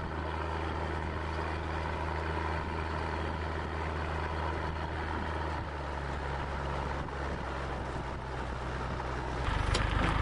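A car driving at a steady speed: a steady engine hum under road and wind noise. About nine and a half seconds in the sound jumps louder and lower.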